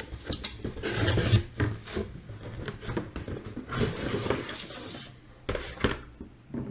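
A bicycle aero helmet being pulled out of its cardboard box: the packaging rubs and scrapes in irregular bursts, with two short knocks near the end.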